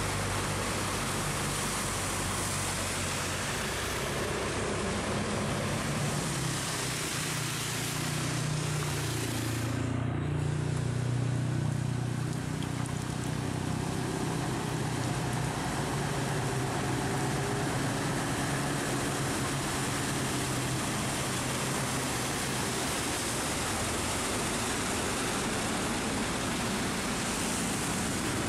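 Heavy rain falling steadily, with the low engine note of trucks driving along a flooded road, loudest from about a quarter to half of the way in as one passes close.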